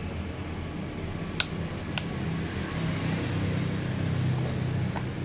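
Two square rocker power switches on a soldering-iron controller box clicked off one after the other, about half a second apart, over a steady low hum.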